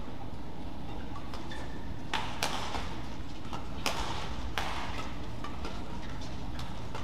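Badminton rackets striking the shuttlecock in a fast doubles rally: a string of sharp, short hits, the loudest clustered in the middle, over a steady low hall noise.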